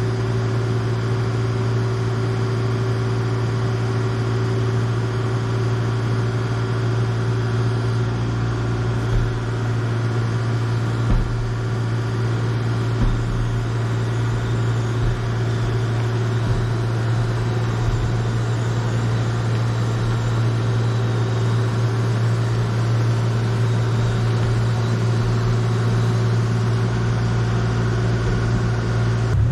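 A vehicle engine running steadily, a constant low hum, with a few light knocks around the middle.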